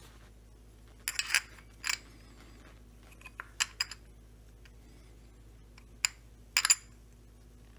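Sharp, light metallic clinks and clicks as a washer is handled and tried on the crankshaft stub of a Stihl 025 chainsaw's clutch side. The clinks come in a scattered series, loudest about a second in and near the end.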